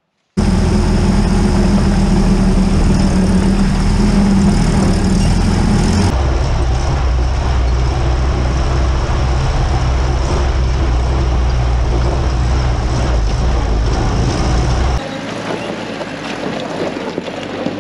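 Willys CJ-2A Jeep driving slowly over dirt and gravel on ATV tires, its four-cylinder engine running steadily, heard from a camera mounted low on the Jeep. The sound changes abruptly about six seconds in and turns quieter, with less engine, for the last few seconds.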